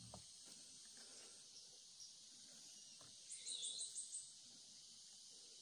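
Quiet outdoor ambience: a steady high insect hiss, broken a little over three seconds in by a bird's quick run of about six high chirps.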